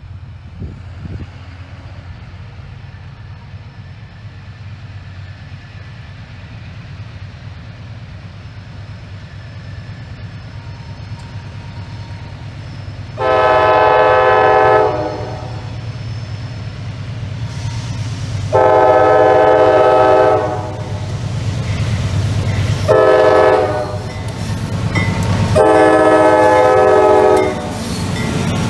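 Diesel freight locomotive approaching, its engine rumble growing louder, then its multi-tone air horn sounding the grade-crossing signal about 13 seconds in: two long blasts, a short one and a long one.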